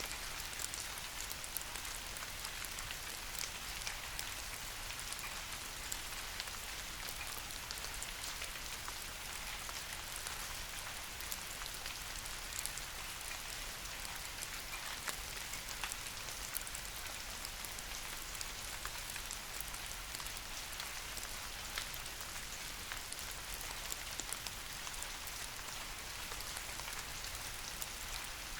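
Steady soft rain falling on leafy trees: an even hiss with many small, sharp drop ticks scattered through it.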